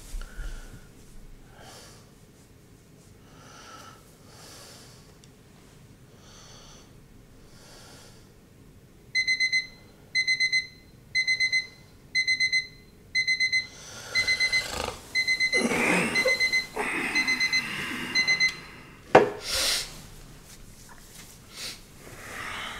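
A digital alarm clock beeps in short bursts of a high electronic tone, a bit more than one burst a second, for about nine seconds, waking a sleeper. Faint, slow breathing comes before it. Bedding rustles as he stirs during the beeping, and a sharp thump follows just after the beeping stops.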